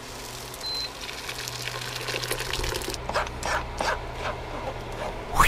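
Cooked tomato pulp being poured from a pan into a sieve and worked through it with a wooden spoon: wet sloshing and scraping, with a few sharper strokes in the second half over a steady low hum. A short rising whoosh near the end.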